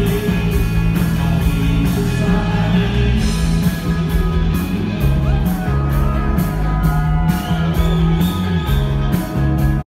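Live rock band playing loudly, with electric guitar, bass and a steady drum and cymbal beat; the music cuts off suddenly near the end.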